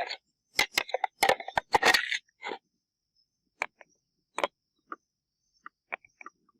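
A quick run of scrapes and clicks for about two seconds, then a few scattered light clicks.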